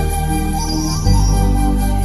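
Background music of sustained keyboard chords, the bass note changing about a second in, with bells jingling over it.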